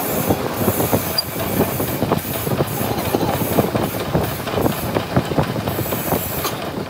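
Lathe drilling a metal shaft with a large twist drill: a steady metallic cutting noise full of rapid crackling and clicking as chips break and curl out of the bore.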